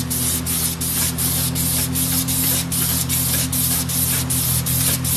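A strip of 1000-grit abrasive cloth is pulled back and forth around a Ford 460 crankshaft journal. It makes a rhythmic rasping hiss of about three strokes a second. The grit is fine enough that it is polishing the journal, not cutting it. A steady low hum runs underneath.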